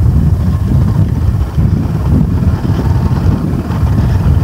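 Loud, uneven low rumble of wind buffeting the microphone.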